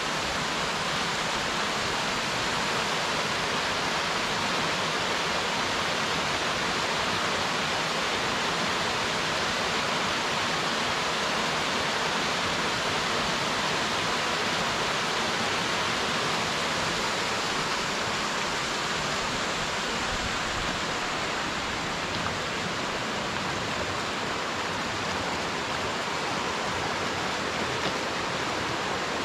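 Steady rush of a small stream issuing from a cave resurgence and cascading over mossy rocks.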